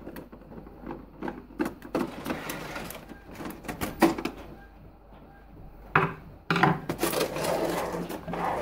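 Hands and a screwdriver working on an Epson XP-342 printer's plastic housing: scattered light clicks and knocks of plastic. About six seconds in there is a sudden louder knock, then a denser run of scraping and knocking as the printer is tipped up on the table.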